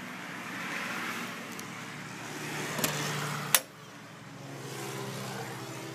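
Steady engine-like hum, with two sharp knocks about a second apart near the middle as someone climbs the fifth-wheel trailer's entry steps and goes in through its door. After the second, louder knock the background hum drops.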